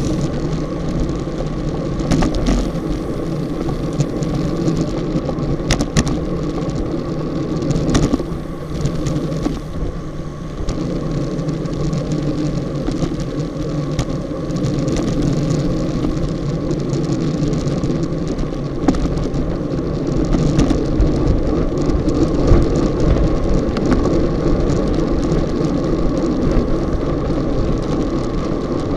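Wind rushing over an action camera's microphone and tyre noise from a road bicycle riding in a fast racing bunch. A few sharp knocks come through the camera mount, about 2, 6 and 8 seconds in.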